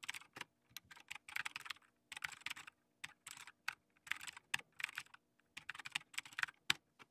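Typing on a computer keyboard: a terminal command entered in quick runs of keystrokes with short pauses between them, ending with a single keystroke near the end.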